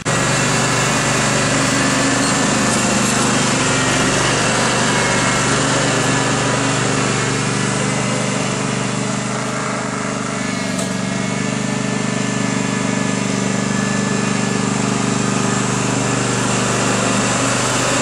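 Garden tractor's engine running steadily close by while it pushes snow with a front plow blade, a little quieter around ten seconds in.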